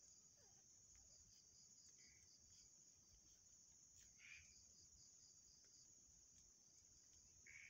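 Faint, steady chirping of crickets: a continuous high trill with a fast, regular pulsing note under it. Brief faint squeaks about four seconds in and near the end.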